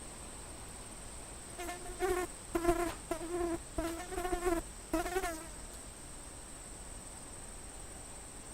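Flying insect buzzing in a handful of short passes whose pitch wavers up and down, from a little over a second and a half in until past five seconds. A faint steady high-pitched whine runs underneath throughout.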